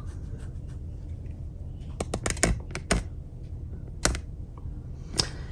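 Scattered sharp taps and clicks, a quick cluster of about five between two and three seconds in and single ones later, over a low wind rumble on the microphone.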